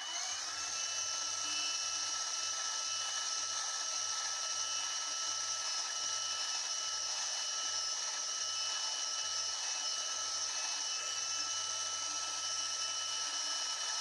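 Milling machine spindle spinning up with a brief rising whine, then running steadily with a high whine while drilling deep holes in aluminium bar.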